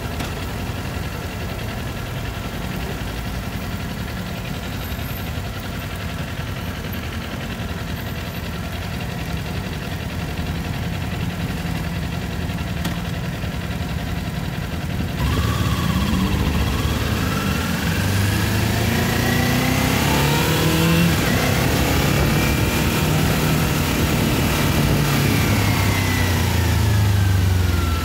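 Kawasaki Ninja 400's parallel-twin engine idling steadily. About halfway through, the revs pick up as the bike pulls away, and the engine note then rises and falls with the throttle.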